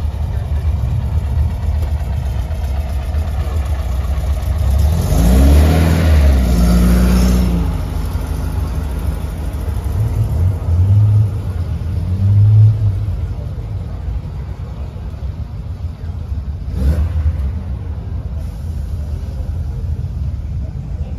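Classic car engine rumbling at idle, with revs: one rising in pitch about five seconds in, then shorter ones around eleven and twelve seconds. A brief sharp knock about seventeen seconds in.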